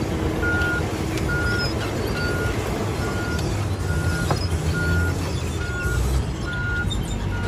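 Komatsu D475A crawler bulldozer's diesel engine running with a steady low rumble, while its backup alarm beeps a single high tone a little faster than once a second. The alarm is the sign that the dozer is travelling in reverse.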